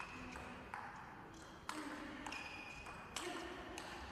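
Table tennis rally: the ball's sharp pocks off the bats and the table, about five hits in four seconds, some with a brief high ringing ping after them.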